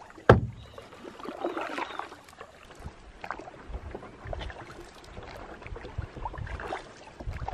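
Canoe paddle strokes through water thick with lily pads: faint, irregular swishes and drips, with one sharp knock just after the start, the loudest sound, as of the paddle striking the canoe.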